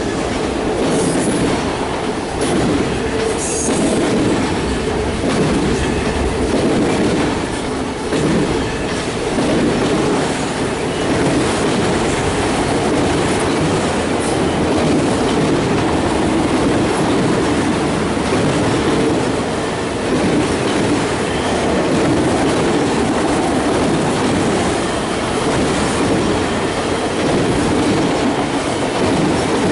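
Freight train of autorack cars rolling past: a steady, continuous noise of steel wheels running on the rails.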